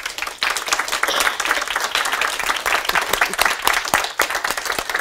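Audience applauding, many hands clapping at once in a dense, steady patter.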